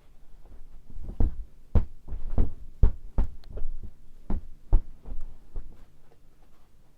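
A run of about a dozen irregular dull thumps and knocks, heaviest in the middle, over a faint steady hum.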